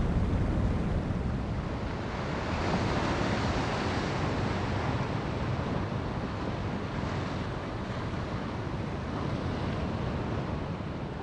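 Ocean surf rushing in a steady wash with no music, swelling slightly a couple of seconds in.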